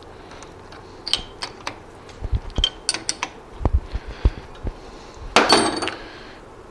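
Metal clicks, knocks and low thumps from an Atlas metal lathe being set up by hand with its motor off, as the tailstock is locked and the four-jaw chuck handled, with a louder metallic clatter about five and a half seconds in.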